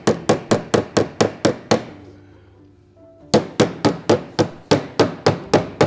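Body hammer tapping out small creases and a dent in a car's rear quarter panel sheet metal. Two runs of quick, even blows, about four a second, with a pause of about a second and a half between them.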